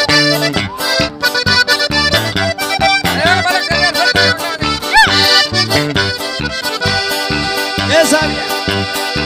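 Accordion-led sierreño band playing an instrumental intro, with a bass line pulsing on the beat and no singing yet.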